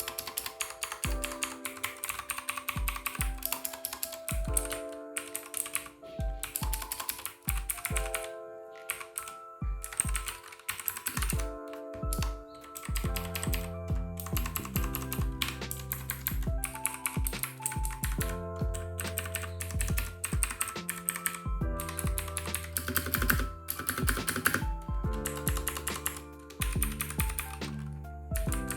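Typing on a Vortex series VX7 mechanical keyboard with blue switches: fast runs of key clicks in bursts with short pauses. Background music plays underneath, its bass coming in about halfway.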